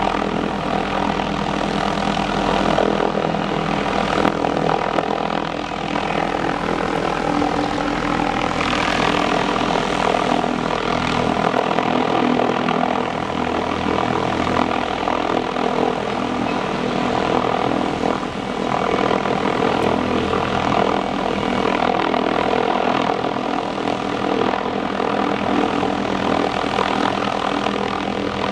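Hughes 500D helicopter running close by, its rotor and turbine making a loud, steady, many-toned drone.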